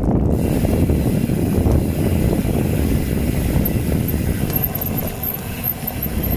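Wind buffeting the microphone over a loud, steady low rumble.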